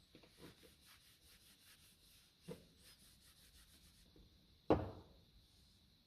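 Quick, faint, rhythmic rubbing strokes on wood, about four or five a second, with a light knock about two and a half seconds in and a louder knock near the end.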